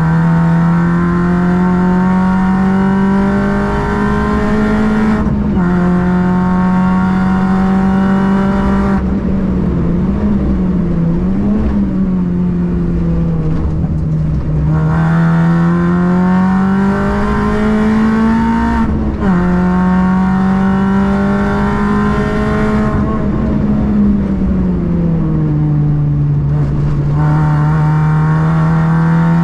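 Car engine running hard on a race circuit, its revs slowly climbing and then dropping sharply at gear changes about five and nineteen seconds in, and falling away as the car slows around ten and twenty-three seconds in.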